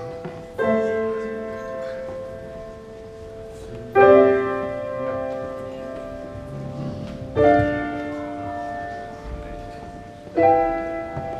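Slow piano music: four sustained chords, a new one struck about every three and a half seconds and left to ring and fade.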